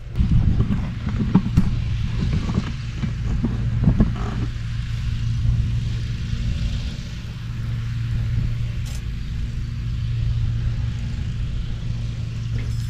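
Garden tiller engine running under load as its tines churn hard, dry ground, with clattering knocks over the first four seconds or so, then a steady engine hum.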